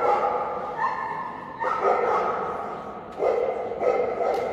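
A dog barking several times, a second or two apart, each bark ringing on and fading slowly in the echo of a large hall.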